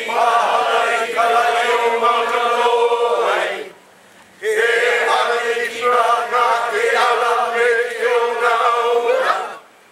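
Group of men and women chanting a Hawaiian oli in unison, holding a steady reciting pitch. Two long phrases with a short pause for breath about four seconds in.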